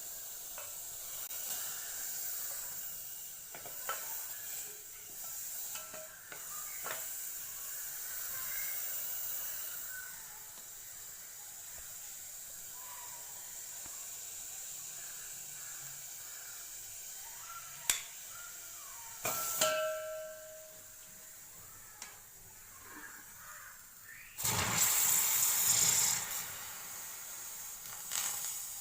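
Electric immersion water heater rod heating curd, giving a steady hiss and sizzle with scattered clicks and pops; a louder rush of hiss comes for about two seconds near the end.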